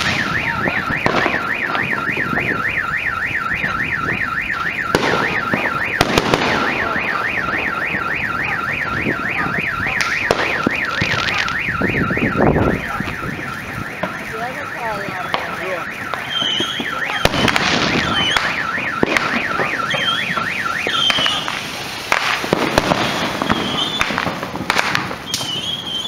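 Car alarm sounding a fast warbling siren, set off by a bottle rocket, stopping about 21 seconds in. Firework bangs and crackles go off around it.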